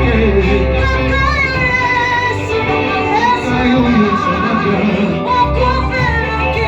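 Church worship music: voices singing a melody over a steady bass accompaniment.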